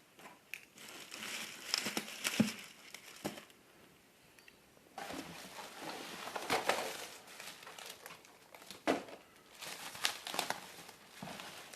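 Plastic bubble wrap being pulled off a boxed PC case and crumpled. It crinkles in three stretches, with sharp clicks among them.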